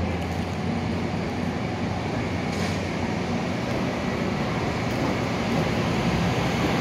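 Virginia Railway Express commuter train pulling out, its passenger coaches rolling past with a steady rumble of wheels on the rails, slowly growing louder.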